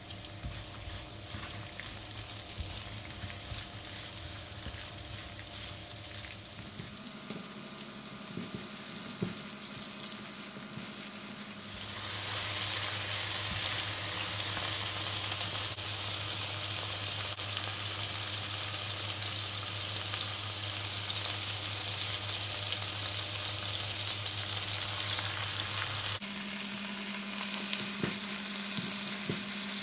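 Sliced red onion sizzling in hot oil in a nonstick frying pan, stirred with a spatula, as it is sautéed toward caramelizing. The sizzle gets louder about twelve seconds in.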